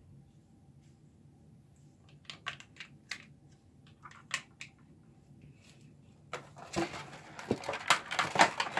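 Light clicks and taps of plastic doll parts and a clear plastic packaging tray being handled, then from about six seconds in a louder, busy crinkling of a clear plastic packaging bag.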